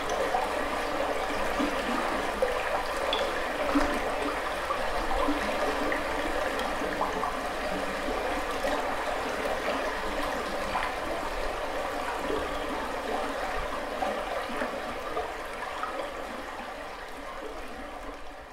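Two Medicine River running shallow over rocks: a steady rush of flowing water, with a low rumble underneath. It fades out toward the end.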